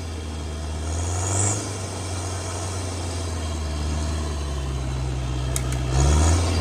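Off-road vehicle's engine running at low revs, rising briefly about a second in and again more strongly near the end.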